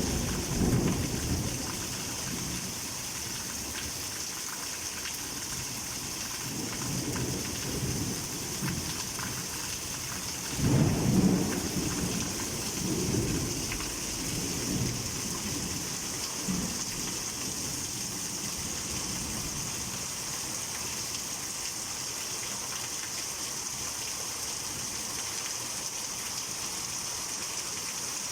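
Heavy tropical rain falling steadily with rolling thunder: a rumble at the start, then a louder peal about ten seconds in that rolls on for several seconds before fading back under the rain.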